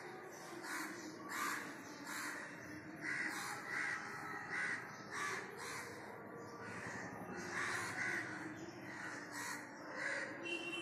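Birds calling over and over, roughly one to two short calls a second.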